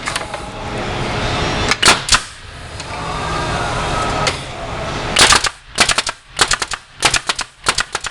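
Hive body assembly machine cycling: a steady mechanical hum, two sharp clicks about two seconds in, then from about five seconds a rapid run of sharp strokes as it drives fasteners into the box joints.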